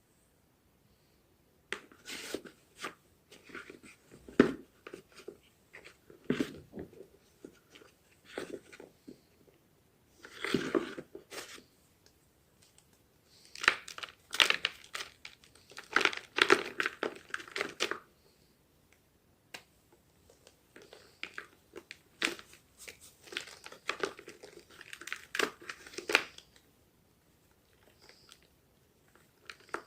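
Homemade gym chalk crunching and crumbling in repeated bouts of crackly crunches, each a second or two long, separated by short pauses.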